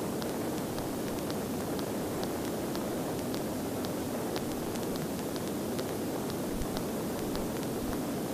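Steady noise of a Cessna light aircraft in flight, its engine and airflow blended into an even hiss, with faint ticks a few times a second.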